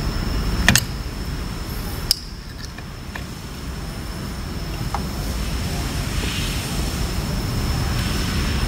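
Steady low rumble of background noise with a thin constant high whine, broken by sharp metal clicks about a second in and again around two seconds, with a few faint ticks later: pins and tools being handled on an inline diesel injection pump as its tappets are pinned.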